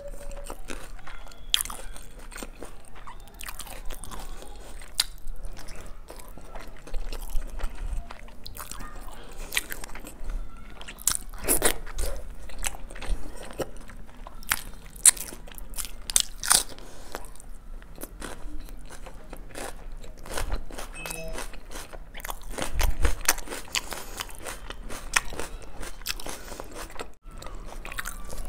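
Close-miked eating: irregular chewing with wet mouth clicks and frequent crunchy bites as biryani and chicken are eaten by hand.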